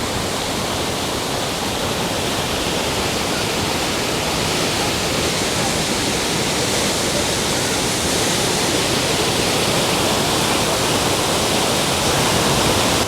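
Steady rush of water pouring down the rapids and waterfalls of a river-rapids water ride, swelling slightly louder in the second half.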